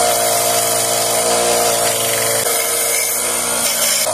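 Bench belt sander running steadily, with the cut end of a 304 stainless steel exhaust tube held against the belt. A motor hum lies under a high grinding hiss as the rough cut end is cleaned up.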